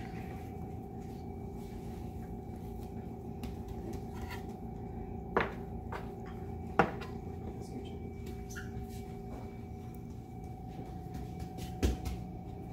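Steady mechanical hum of kitchen equipment, with a few sharp metal clinks and knocks: two in the middle and one near the end. The knocks come from a metal bench scraper and sheet pan being handled while flatbread dough is portioned on the worktable.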